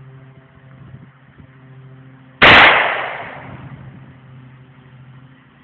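A single gunshot about two and a half seconds in, loud enough to clip, with its echo dying away over about a second and a half.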